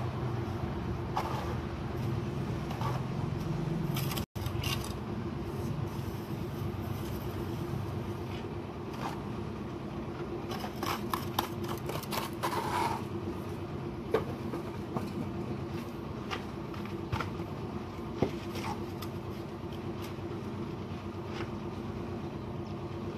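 Scattered scraping and a few sharp taps of a steel trowel on mortar and red bricks as a brick wall is laid, over a steady low hum.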